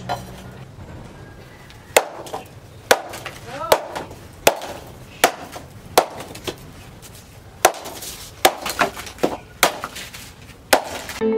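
Large hunting knife forged from a tractor disc-plough blade chopping through green bamboo against a wooden log: about a dozen sharp chops, starting about two seconds in and coming roughly one a second.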